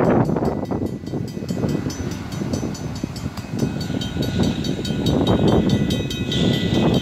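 Railway crossing warning bell ringing in rapid, regular strikes while the crossing signals flash, with gusts of wind buffeting the microphone underneath.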